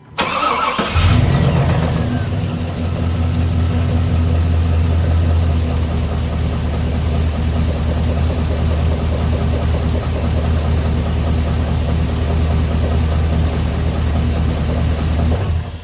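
A 6.0 L LQ4 LS V8 is cranked by its starter and catches after about a second, then idles steadily for about fourteen seconds before it cuts off near the end. The owner suspects a spun connecting-rod bearing on cylinder number 7 after over-revving it.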